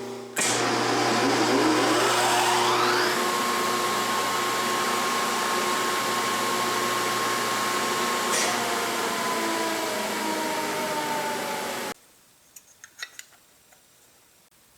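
The electric motor of a Yates American B244 planer started from its new push-button starter: a whine that rises over the first couple of seconds as it spins up, then runs steadily. It stops abruptly near the end, followed by a few faint clicks.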